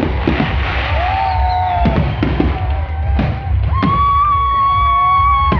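Music with a steady drum beat and a long held note in its second half, with sharp bangs from a fireworks display among it.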